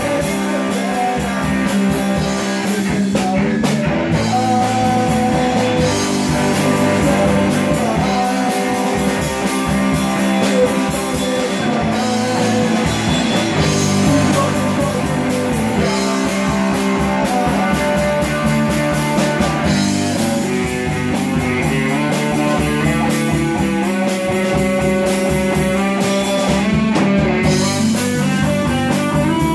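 Rock band playing live: semi-hollow electric guitar, electric bass and drum kit together at a steady beat.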